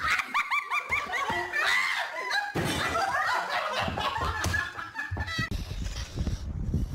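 A person laughing hard in quick, high-pitched, repeated laughs, with thumping and knocking underneath from about two and a half seconds in.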